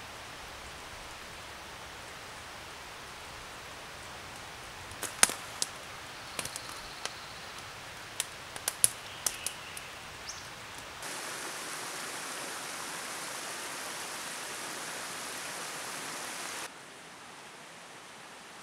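Steady rushing outdoor background noise with a run of about a dozen sharp clicks and snaps midway. The rushing then grows louder for several seconds and drops back.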